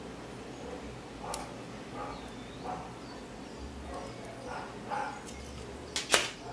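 A metal tape measure set down on a desk: two sharp clacks about six seconds in. Faint short whines and handling sounds come and go before it.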